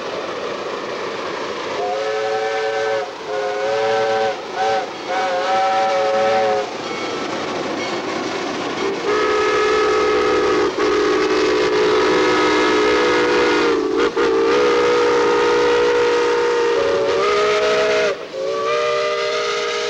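Steam whistle of the Willamette geared steam locomotive sounding a chord of several tones. It gives three short blasts about two seconds in, then one long blast of about nine seconds, then another blast near the end. A steady hiss of steam runs underneath.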